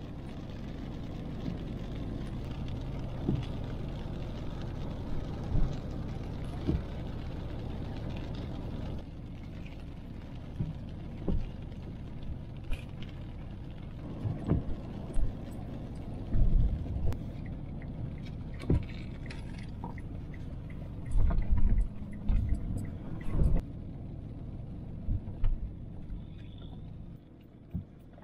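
A car driving on a wet road, heard from inside the cabin: steady low engine and tyre rumble with tyre hiss, easing a little about nine seconds in. Scattered knocks, thumps and light rattles come through, with a few louder thumps in the second half.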